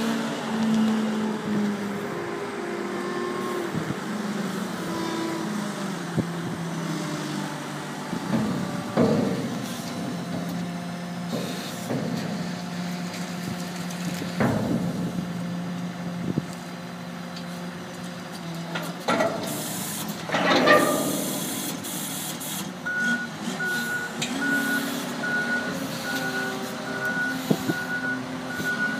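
Komatsu wheel loader's diesel engine running and changing pitch as it works, with several loud metal clanks as its direct-mount attachment engages and lifts a steel skip. A reversing alarm starts beeping regularly about three-quarters of the way through.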